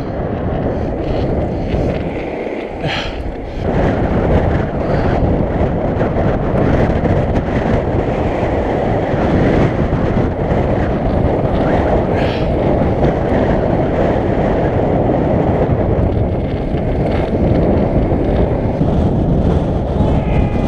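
Strong wind buffeting the microphone, a loud, steady rush mixed with the rumble of skateboard wheels rolling fast over the ground.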